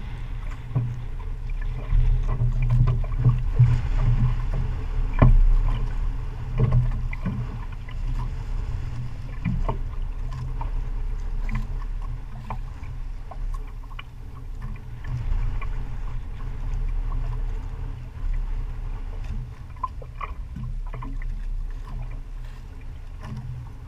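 Steady low rumble and water noise aboard a small wooden outrigger fishing boat on open sea, with a few light knocks and clicks scattered through.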